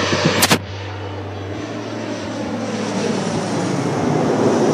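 A KLM Cityhopper Embraer regional jet on final approach passes low overhead, its engine noise growing steadily louder toward the end. There is a short sharp click about half a second in.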